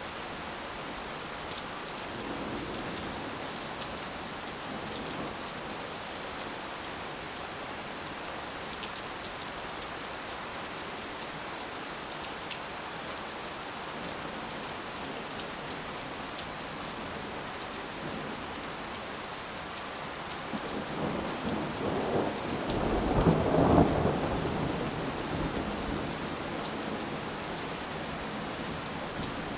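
Heavy rain falling steadily in a front yard, an even hiss with scattered drop ticks. About two-thirds of the way through a deep low rumble swells, peaks and fades over some five seconds.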